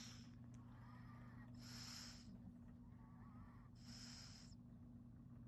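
Sleeping chihuahua snoring: three hissy breaths about two seconds apart, with a faint whistling wheeze between them.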